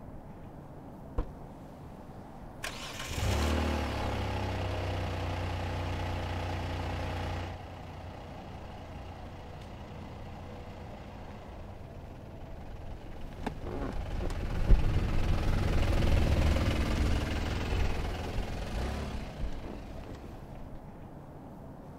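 A car engine starts about three seconds in and runs steadily for a few seconds before cutting off. Later, engine and vehicle noise swells up, peaks and fades away.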